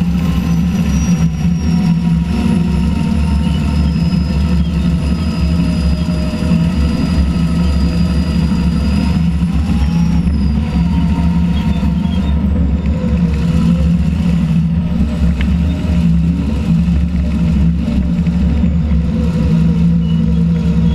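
Allis-Chalmers HD-21 crawler's diesel engine running steadily under load, heard from the operator's seat as the machine works through the soil.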